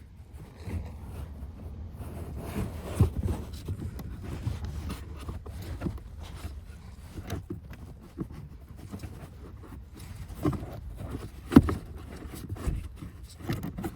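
Handling noise from a cabin pollen filter being pushed into the plastic filter housing of a Mercedes S-Class W221: scattered scrapes and plastic knocks over a low rumble, the sharpest knock a couple of seconds before the end.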